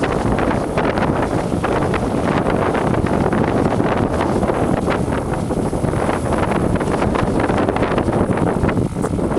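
Wind buffeting the microphone: a loud, continuous low rumble that flutters with the gusts.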